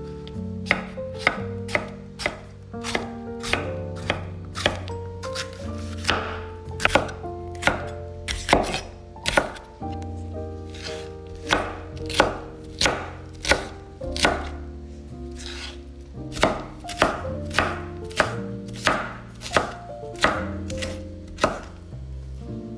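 Santoku knife chopping a green bell pepper on a wooden cutting board: a long run of sharp knocks, one or two a second, as the pepper is sliced into strips and then diced.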